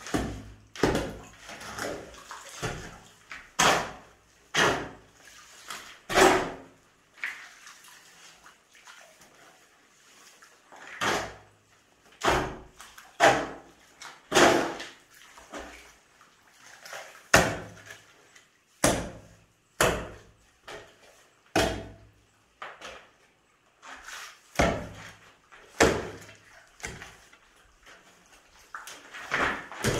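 Steel shovel scraping across a concrete slab and turning a wet sand-and-cement mortar mix by hand, in irregular strokes roughly one a second, with a lull between about 7 and 11 seconds in.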